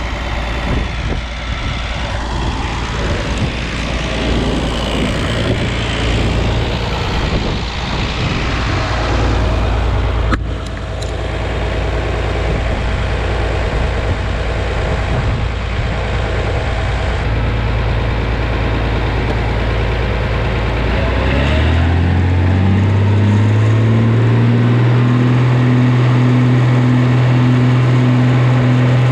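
Oliver 2050 tractor engine running with a rough rumble while driving a PTO generator. About 21 seconds in, a steady hum rises in pitch and settles as the generator is brought up to speed to make three-phase power.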